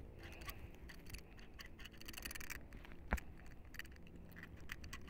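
Faint scattered clicks and ticks over low background noise, with one sharper click about three seconds in.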